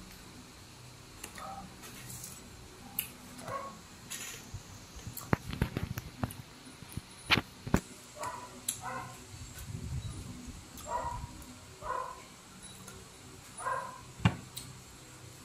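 Close-up eating sounds from ripe apple mango slices: wet chewing, lip smacks and finger sucking in short irregular bursts, with a run of sharp clicks near the middle.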